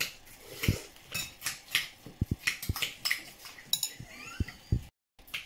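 Metal spoon clinking and tapping against a ceramic bowl of halo-halo, in irregular sharp clinks. The sound cuts out completely for a moment near the end.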